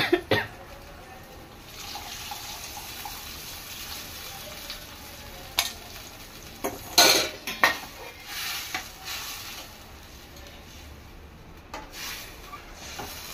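Steel utensils clinking against a stainless steel kadai as tamarind water is poured into a simmering taro curry, then a steady sizzle from the pan. A burst of metal clatter comes about seven seconds in, and a spoon scrapes and taps in the pan as it is stirred near the end.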